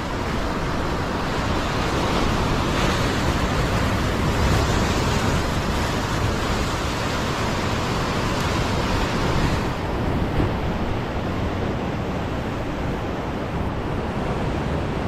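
Ocean surf breaking and washing over the rocks below a sea cliff: a steady rushing wash of waves, mixed with wind on the microphone.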